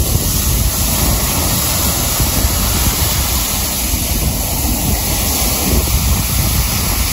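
Sea surf breaking and washing up on a sandy beach in a steady rush, with wind rumbling on the microphone.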